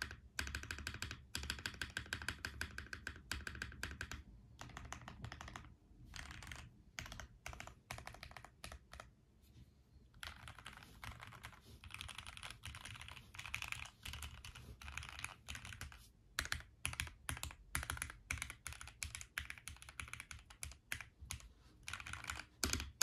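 Clacky typing on a Tofu65 mechanical keyboard: lubed Gateron milky yellow linear switches on an aluminium plate in an acrylic case, with HK Gaming 9009 keycaps. Rapid runs of keystrokes with a few short pauses.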